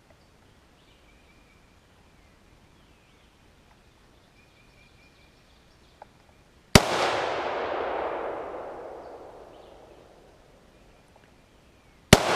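Two rifle-detonated Tannerite exploding targets going off about five and a half seconds apart. Each is a sharp crack followed by a long rolling boom that dies away over a few seconds; the second comes at the very end.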